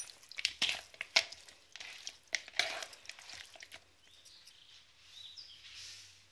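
Raw chicken pieces being squeezed and mixed by hand in a bowl: a quick, uneven run of wet squishes and crackles that dies away after about four seconds.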